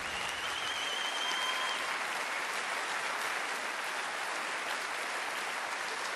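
Studio audience applauding steadily, with a wavering, warbling whistle over the clapping for the first two seconds or so.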